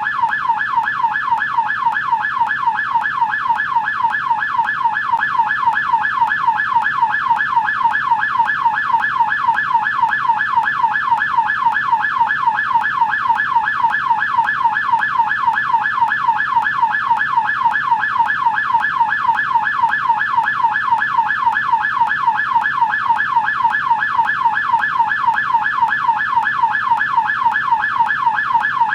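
American police siren in yelp mode, its tone sweeping rapidly up and down over and over in a fast, even rhythm without a break.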